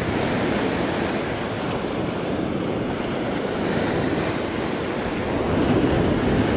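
Ocean surf washing in around the feet, with wind buffeting the microphone; a wave swells louder about five and a half seconds in.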